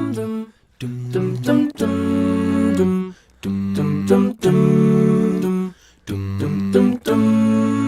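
Children's choir singing a cappella, holding chords in short phrases of about a second each with brief breaks between.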